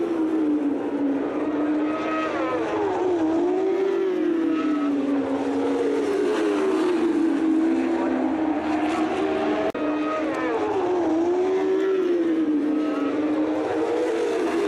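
Moto2 racing motorcycles' 600 cc four-cylinder engines running hard, their pitch rising and falling repeatedly as the bikes accelerate, brake and go past.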